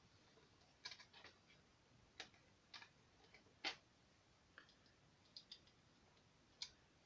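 Faint, irregular metal clicks and ticks: small hex screws being handled and threaded finger-tight through a weaver rail onto a shotgun receiver, with one louder click a little under four seconds in.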